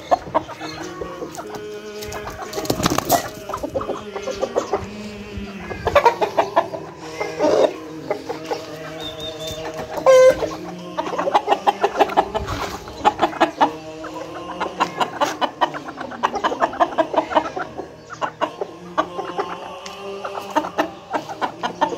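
Chickens, including a white Aseel rooster, clucking repeatedly in short pitched calls, with a louder call about ten seconds in.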